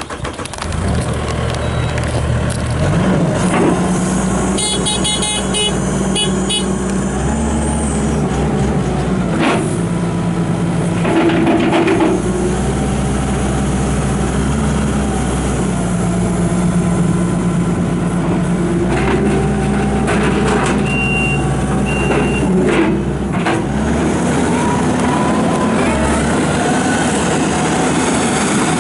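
Kubota V3307 four-cylinder turbo diesel in a tracked skid steer loader starting up about half a second in, then running and being driven, its engine speed stepping up and down. A string of rapid electronic beeps comes a few seconds in, and two short beeps come later.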